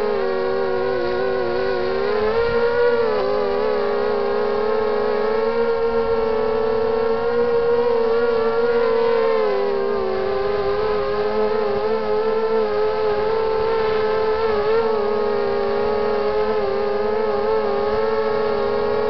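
Brushless motors and propellers of a 250-size quadcopter (Emax 2300 kV motors on a 3S battery) whining steadily, heard from the craft itself. The pitch rises about two seconds in, dips again near the middle, and wavers slightly as the throttle changes.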